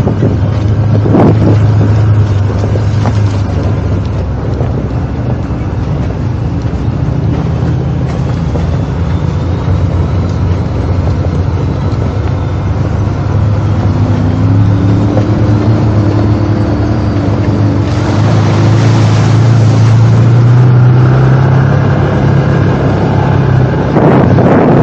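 ATV engine running under way, its pitch rising and falling with the throttle, with wind buffeting the microphone.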